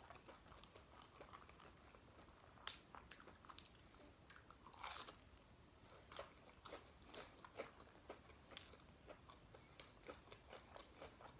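Faint chewing and crunching of food, a scatter of small wet clicks and crunches with a couple of louder bites about three and five seconds in.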